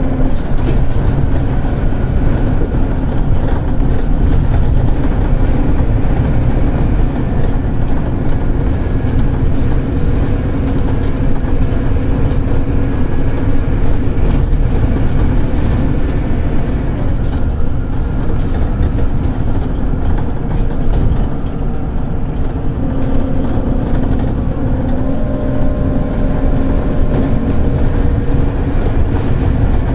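Scania DC9 five-cylinder diesel engine of a Scania K280UD bus working hard at full throttle on an uphill climb, heard from inside the passenger cabin as a loud, steady drone. About two-thirds of the way through the sound eases briefly, then the engine note comes back and rises.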